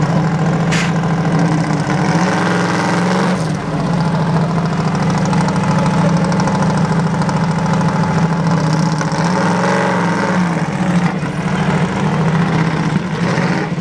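AC Cobra's V8 engine idling, loud and steady, with a brief rise and fall in pitch about ten seconds in.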